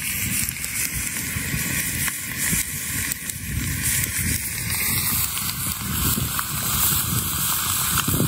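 Campfire burning with an irregular crackle under an even hiss; from about five seconds in, a seasoned steak is sizzling in a frying pan set over the flames.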